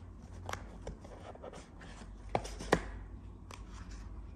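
Hands handling a small cardboard gift box and its insert: a few light, sharp clicks and taps, the two loudest a little after two seconds and close to three, as the device is lifted out.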